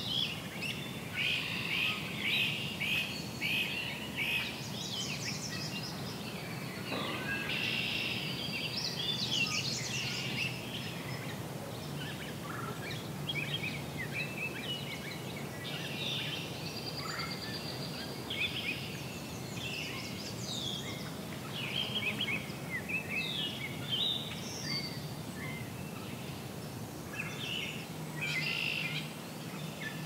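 Songbirds singing in a spring wetland: several birds' songs and chirps overlap continuously, with short repeated phrases. A low, steady hum lies underneath.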